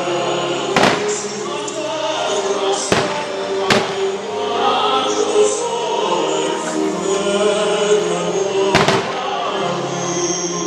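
Aerial fireworks shells bursting over loud show music: four sharp bangs, three in the first four seconds and one near the end, over sustained music with choir-like voices.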